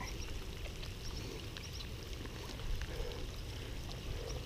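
Rain falling on the lake and the bank, a steady patter with faint scattered drop ticks, over a low rumble.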